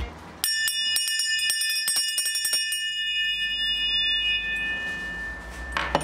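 Small brass ship's bell rung rapidly with its clapper: a quick run of strikes for about two and a half seconds, then several high tones ringing on and fading away. A single knock near the end.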